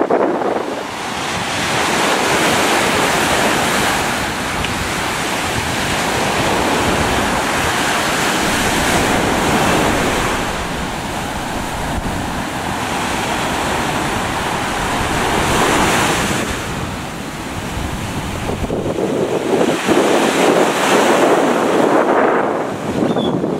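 Ocean surf breaking and washing up a sandy beach, swelling and ebbing every few seconds, with strong wind buffeting the microphone.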